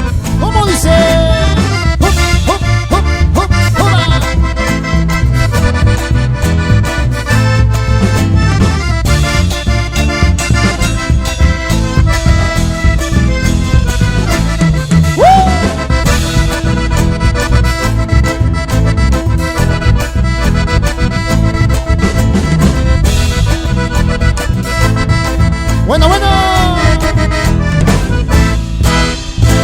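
Chamamé played live on accordion with guitar and bass, a steady dance beat, with a few short sliding shouts or calls over it.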